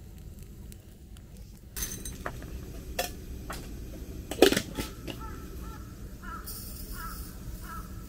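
Clicks and knocks of metal and wood as a Kalita wooden hand coffee grinder is handled, the loudest a sharp knock about halfway. In the second half, crows caw several times.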